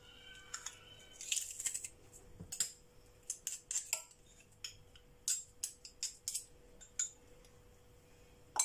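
Hand-held metal garlic press being squeezed and scraped as garlic is crushed into a pot: a run of irregular short metal clicks and scrapes.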